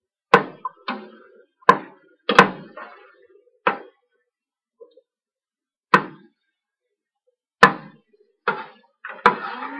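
Long metal spoon knocking against the sides of a stainless steel pot while stirring curry: about nine sharp clinks at uneven intervals, each ringing briefly.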